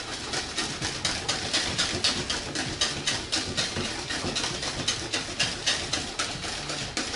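Wire whisk beating oatmeal pancake batter briskly against the sides of a plastic mixing bowl, with rapid, even strokes about five or six a second, working the lumps out of the flour.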